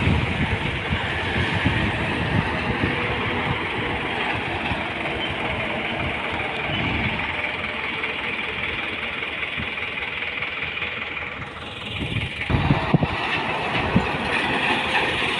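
Heavy lorry engines and traffic running past on a road as a steady rumble, dipping briefly about three-quarters through before a few louder low knocks.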